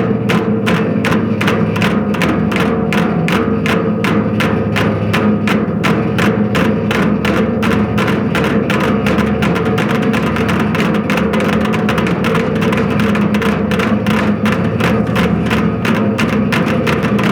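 Rapid, evenly spaced wooden knocks, about five a second, over steady sustained music.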